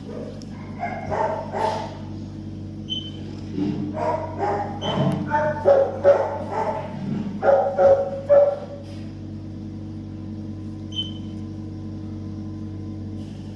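A dog barking and yipping in short bursts, a few calls about a second in and a longer run of them from about 4 to 9 seconds in, over a steady hum. A few short high beeps sound between the calls.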